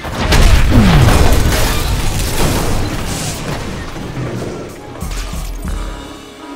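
A sudden, very loud cinematic boom, the sound-effect blast of a glowing chi-powered punch, with a dropping rumble in its first second, then dying away slowly over several seconds under music.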